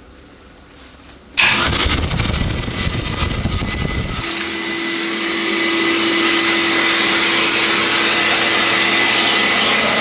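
Vacuum cleaner switched on about a second and a half in, then running steadily. About four seconds in, its low rumble drops away and a steady hum holds.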